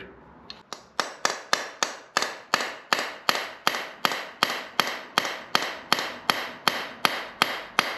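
Hammer tapping a punch to drive a Jeep alternator's rotor shaft out through the end-housing bearing. It is a steady run of sharp metallic taps, about three a second, each with a short ring.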